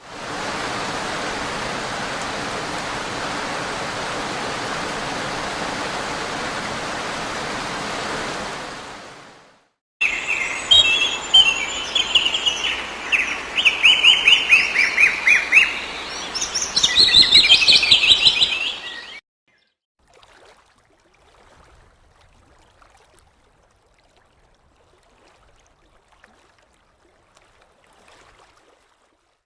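A steady, even hiss for about nine seconds that fades out, then, after a brief gap, birds chirping and trilling loudly for about nine seconds, cutting off abruptly. The last ten seconds hold only faint, scattered sounds.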